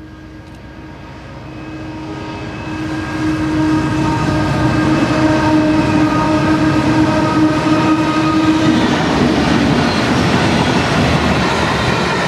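GE C44ACi diesel-electric locomotives hauling a coal train approach and pass close by: a steady, tuneful engine drone grows steadily louder over the first few seconds and drops in pitch about nine seconds in as the locomotives go past, over the loud rumble and clatter of wheels on the rails.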